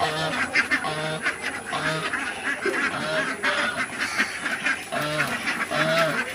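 A flock of Khaki Campbell ducks quacking in their pen, many short calls overlapping and repeating about every half second to a second.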